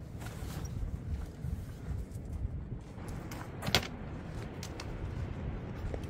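Wind buffeting the microphone with a low, gusty rumble while camping gear is handled: bags shifted and set down, with a few light clicks and one sharp clack a little past halfway.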